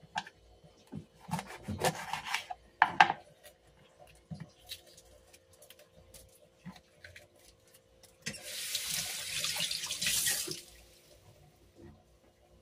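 A kitchen knife cutting a red bell pepper on a wooden chopping board: a run of knocks and short strokes in the first three seconds. About eight seconds in, water runs from a tap for roughly two seconds.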